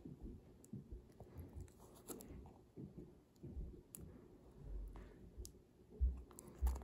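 Soft handling noise of a plastic-wrapped papercraft iPod being turned over in the hands: faint rustling, scratching and light clicks, with two stronger low bumps about six seconds in.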